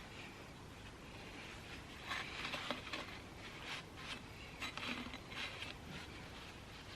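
Light, irregular clicks and rattles of small motorcycle clutch parts being handled, starting about two seconds in.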